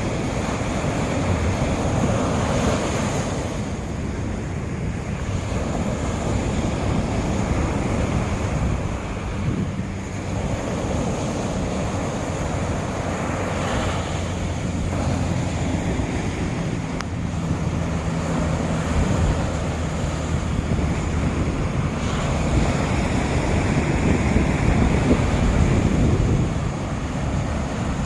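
East Sea surf breaking on the beach, waves washing in and swelling several times, with wind buffeting the microphone.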